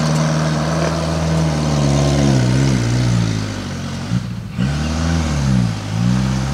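Off-road jeep engine pulling uphill: steady at first, then revving up and down several times, the pitch rising and falling, with a brief break in the note about four seconds in.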